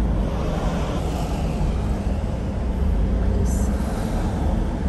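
Steady road noise of a car driving along a highway, heard from inside the moving car: a low rumble of tyres and engine with a hiss of wind.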